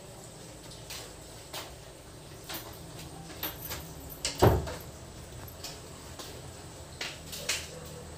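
Scattered short clicks and knocks over a low steady hum, with one louder thump about halfway through.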